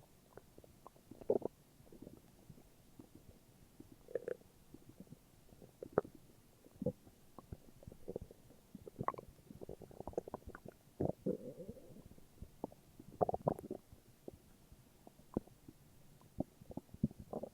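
Human stomach growling: irregular gurgles, pops and short rumbles, with a longer gurgle about eleven seconds in.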